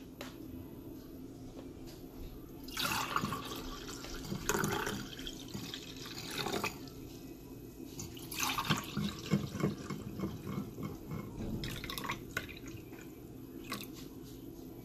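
Tej (Ethiopian honey wine) poured from a glass decanter into stemmed wine glasses, splashing into the glass in several pours of a second or two each with short pauses between.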